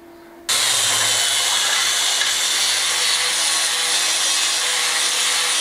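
Handheld power tool scouring loose paint off the steel smoker drum. It starts about half a second in and runs steadily, with a hard rasping noise over a low motor hum.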